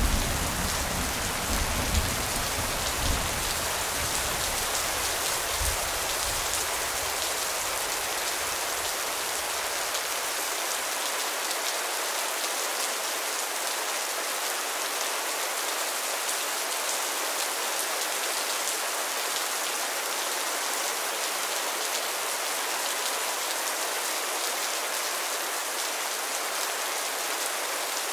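Steady rain falling on the large leaves of a breadfruit tree, an even hiss of drops throughout. A low rumble runs under it for the first several seconds and fades away by about ten seconds in.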